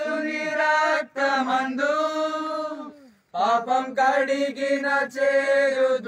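Mourners singing a Telugu Christian hymn without instruments, in long drawn-out held notes, with a short breath pause about three seconds in.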